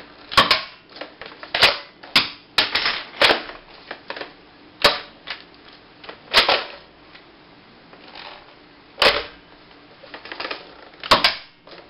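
Sharp plastic clicks and clacks from the Buzz Bee Clip Tek toy foam-dart blaster's cocking and firing mechanism being worked. There are about a dozen of them, irregularly spaced and some in quick pairs.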